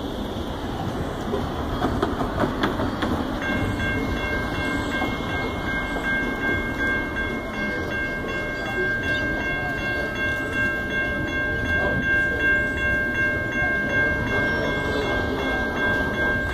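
Railroad grade-crossing warning bell starts about three seconds in and rings on with rapid, evenly repeated dings as the crossing gates come down: the signal that a train is approaching. A steady low rumble runs underneath.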